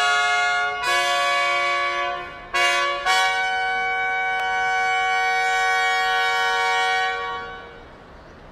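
Military brass fanfare on trumpets: a few short notes, then a long held note that fades out about seven and a half seconds in, leaving a faint background hiss.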